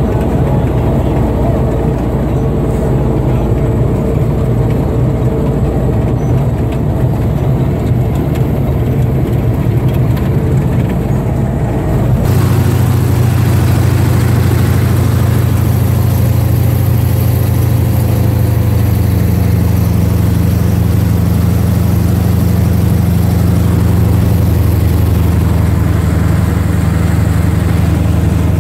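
Military vehicle engine running steadily as it drives across rough grassland. About twelve seconds in the sound shifts abruptly to a slightly louder, steady hum.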